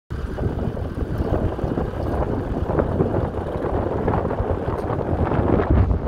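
Fordson Model N tractor's four-cylinder side-valve engine running steadily under load while pulling a plough, with wind buffeting the microphone.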